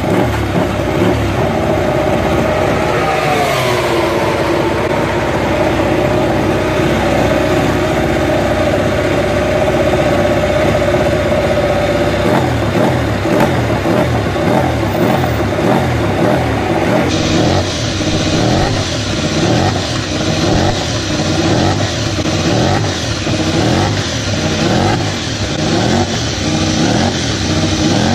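Ducati Desmosedici MotoGP V4 engine running on the stand: a steady high idle whose revs settle lower about 3 to 4 seconds in, then from about 12 seconds on, repeated short throttle blips, roughly one a second, as the engine is warmed up.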